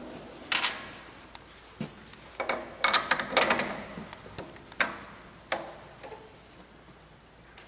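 Hard objects knocking and clicking together, a handful of sharp knocks at uneven intervals with a quick cluster of them midway, some with a brief ring.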